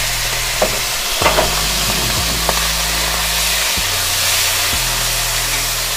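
Prawns sizzling steadily as they fry in hot oil in a kadai, with a few short scrapes of a metal spatula stirring them in the first half.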